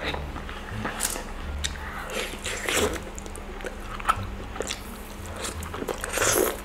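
Close-miked biting and chewing of crunchy food, with irregular crunches and a louder burst of crunching near the end.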